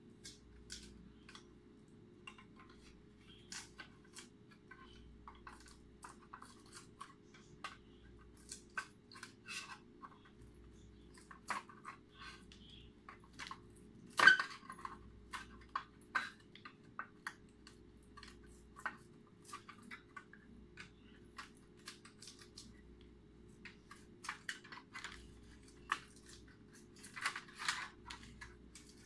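Hand tools and LED module wiring being handled on a workbench as sign lighting is taken apart: scattered small clicks, taps and rustles, with one sharp knock about halfway through, over a faint steady low hum.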